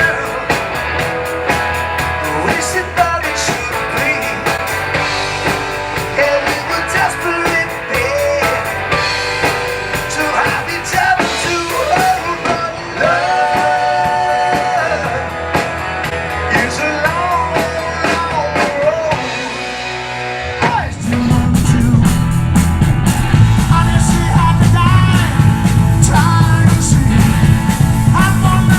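Rock song with a singing voice and guitar; about three quarters of the way through, a heavier, louder section comes in with a strong low end.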